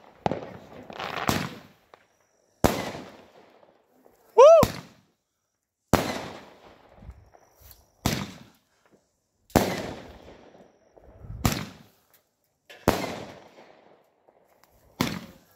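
Multi-shot fireworks firing about ten shots, one every second and a half or so. Each shot is a sharp report that tails off over about a second, and one shot a little before halfway carries a short whistle.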